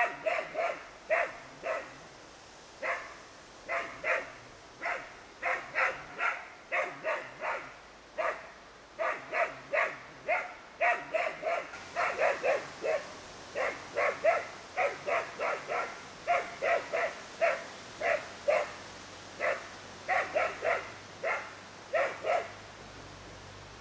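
Young springer spaniel barking in short, sharp runs of several barks with brief pauses between, baying a wild boar it has found and is holding.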